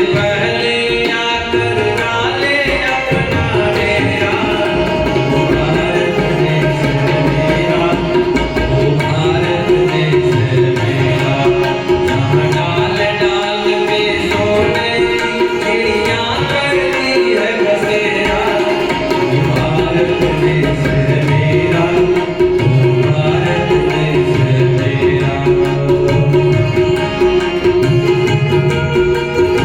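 Indian music: tabla playing a steady rhythm under a gliding melodic line and a held drone note.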